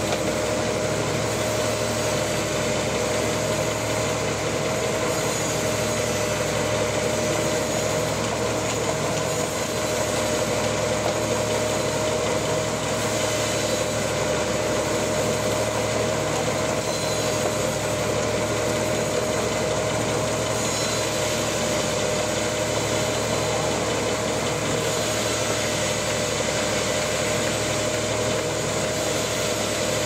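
Large band sawmill running steadily as its blade cuts lengthwise through a big trembesi log, a constant machine hum with a steady high tone and no change in pace.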